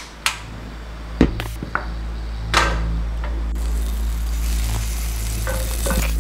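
Portable gas stove being lit: a few sharp igniter clicks, then the burner hissing steadily from about three and a half seconds in.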